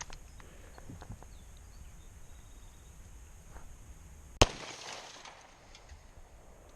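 A single gunshot from a Hi-Point .45 ACP pistol, about four and a half seconds in, with a short ringing tail.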